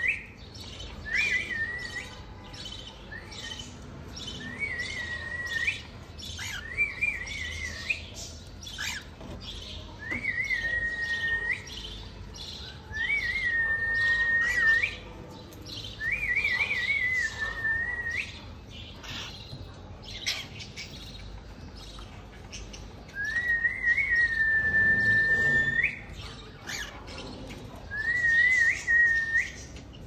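Lutino cockatiel whistling about eight calls, each a short warbling rise that levels off into a held whistle. The calls come irregularly every few seconds, one held for about two seconds in the last third, with scattered short clicks and chirps between them.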